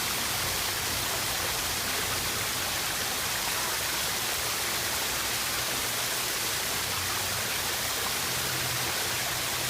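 Steady rush of running water from a mini golf course's water feature, even and unbroken.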